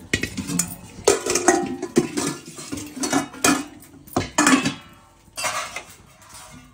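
Metal cooking pots being handled, giving a string of separate clanks and knocks with short ringing.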